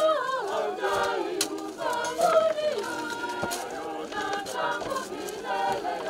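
A group of voices singing unaccompanied, as a choir, with a few short knocks from shovels working soil.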